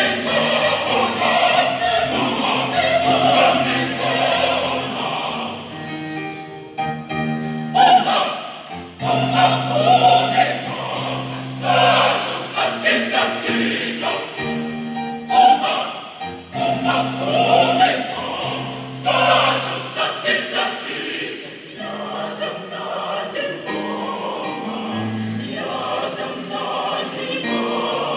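Large choir singing an ingoma, a traditional African song, in harmony, with held low notes and short breaks between phrases.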